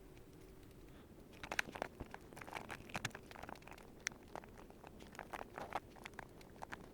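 Faint scattered clicks, taps and rustling of hard plastic as an S.H.Figuarts action figure is handled and set astride a toy motorcycle, starting about a second and a half in.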